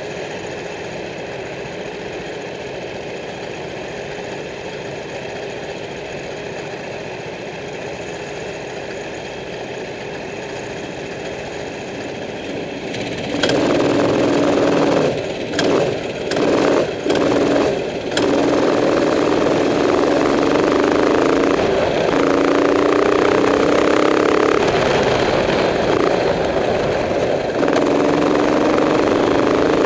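Racing kart engine heard from onboard, idling steadily, then opening up about thirteen seconds in as the kart pulls away. A few brief throttle lifts follow, then it runs hard at high revs, its pitch rising and falling.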